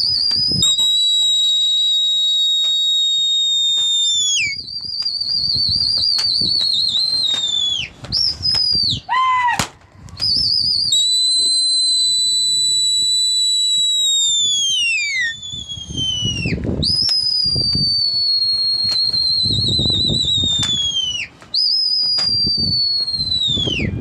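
A person's loud, shrill whistling: about eight long whistles, some held steady and others wavering, most dropping in pitch as they end, with one short rising whistle near the middle. This is a pigeon flyer whistling to drive his flock and keep it circling in the air.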